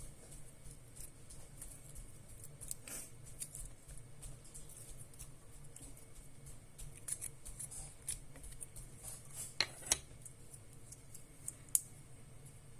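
Fruit-shaped gel slime being squeezed and handled by fingers, making a scatter of small sticky clicks and snaps. The sharpest snaps come just before ten seconds in and near the end.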